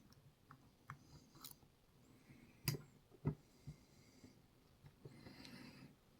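Lock picks working inside a 10-pin dimple lock with sliders: faint metallic scraping with scattered light clicks and taps, the two loudest close together just before the middle.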